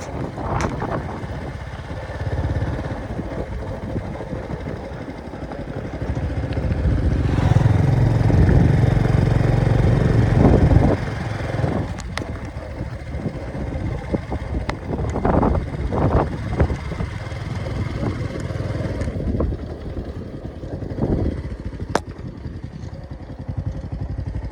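A motor vehicle running with engine rumble and road noise. It is loudest for a few seconds about a third of the way in, with scattered clicks and knocks.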